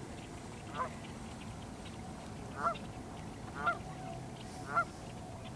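Canada geese honking: four short honks about a second apart, the last three louder.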